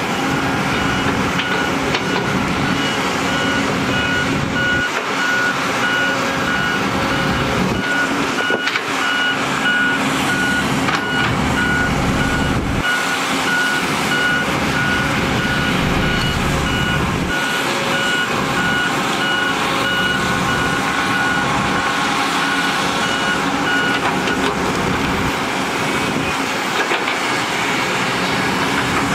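Reversing alarm on a heavy construction machine beeping in an even, rapid rhythm, stopping a few seconds before the end. Underneath, the diesel engines of earthmoving machines, including a hydraulic excavator digging and loading, run with a low rumble that rises and falls as they work.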